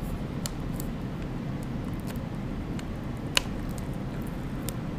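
Plastic shrink wrap being pulled and peeled off a 4K Blu-ray Steelbook case: soft scattered crinkles and ticks over a steady low hum, with one sharper click about three and a half seconds in.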